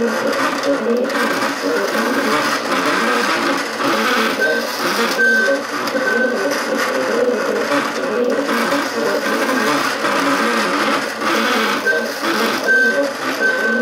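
MakerBot Cupcake CNC 3D printer running a print, its stepper motors buzzing and whirring without a break as the head moves. Several short high whines come through, three around the middle and three near the end.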